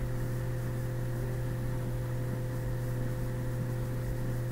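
Steady low hum with a few fainter steady tones over a faint even hiss: room tone. No taps or other distinct sounds stand out.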